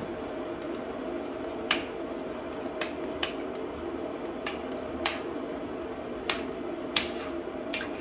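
Sharp clicks and knocks, about eight of them spaced irregularly, as frozen beetroot chunks are dropped and pushed into a red enamelled pot of borscht, over a steady low hum.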